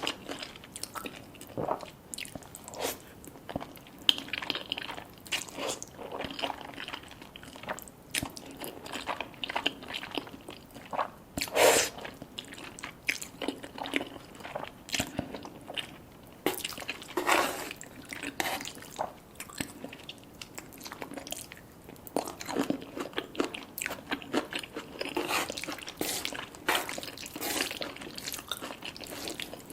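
People chewing and biting food at close range, with a steady run of crunches and mouth clicks; the loudest crunch comes about twelve seconds in and another near seventeen seconds.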